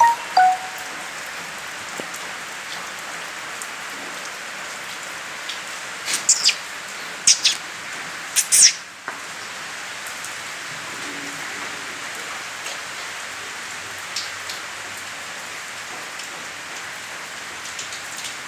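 Steady rain-like hiss, with a few clusters of short, very high chirps between about six and nine seconds in.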